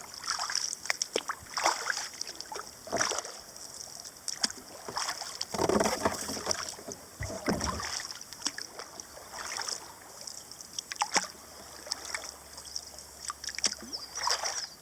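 Kayak paddle strokes: the blades dip and splash in the water at an irregular pace, with water trickling off them between strokes.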